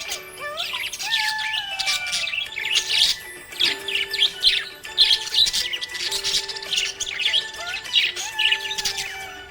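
Budgerigars chirping and twittering busily in quick, dense chatter, over background music with held notes.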